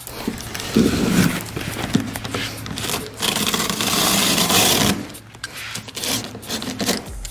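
Sharp utility knife slitting the packing tape and cardboard along a long box's edge: a rough scraping rasp for about five seconds, then softer handling noises.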